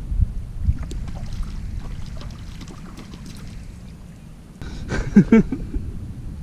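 Wind buffeting the microphone, a low rumble that eases off after the first second, with small scattered clicks and rustles. About five seconds in comes a short louder burst with a brief voice-like cry.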